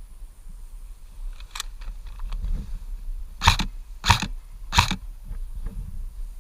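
Airsoft gun firing three single shots about two-thirds of a second apart, after some lighter handling clicks: test shots that now fly straight.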